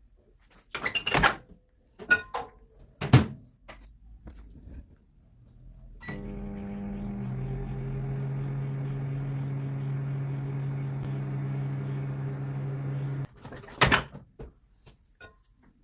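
A few sharp clicks and knocks, then an electric appliance humming steadily for about seven seconds, its pitch dropping a little just after it starts, before it cuts off suddenly, followed by another click.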